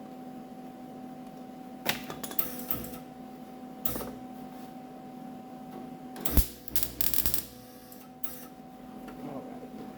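A MIG welder laying short bursts of weld to fill holes in a sheet-metal fender. It crackles in four or so brief spurts, the longest lasting about a second a little past the middle, over a steady hum.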